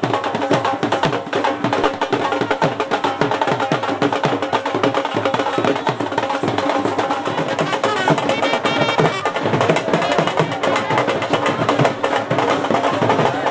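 Loud procession band music: fast, dense drumming with a steady melody held over it, without pause.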